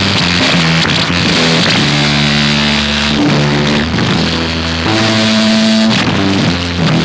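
Music: a dense track with held, pitched low notes that change every half second to a second, over a bright, noisy upper layer.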